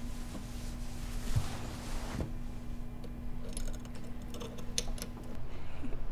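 A soft rush of noise for about two seconds, then a cluster of light crinkles and clicks as a hand rummages in a small tin on a coffee table, over a faint steady hum.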